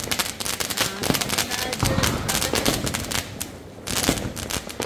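Firecrackers going off in rapid, dense succession, a long run of sharp cracks with a brief lull about three and a half seconds in.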